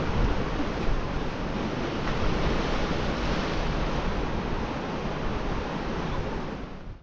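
Small ocean waves breaking and washing in, a steady rushing surf, with wind buffeting the microphone. The sound fades out near the end.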